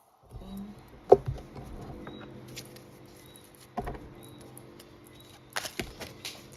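A deck of tarot cards being handled and shuffled: soft rustling with a few sharp taps and clicks, the loudest about a second in and a cluster near the end.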